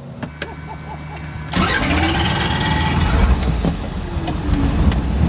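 Robinson R44 Clipper II helicopter's six-cylinder piston engine starting up: it catches with a sudden jump in loudness about a second and a half in, its pitch sweeping up, then runs loud and steady.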